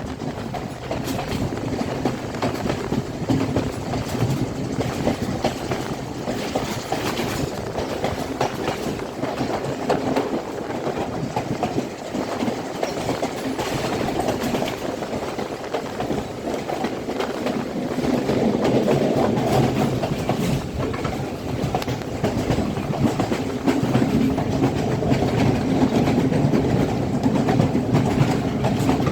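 Passenger express train running on the rails: a steady rumble of the carriages with wheels clicking over the rail joints. It gets louder about two-thirds of the way through.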